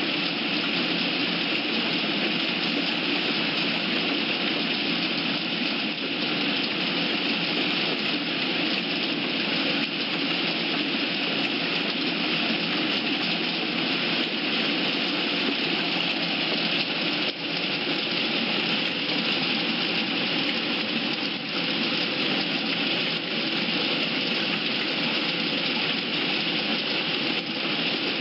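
A steady rushing noise that runs on without a break or change.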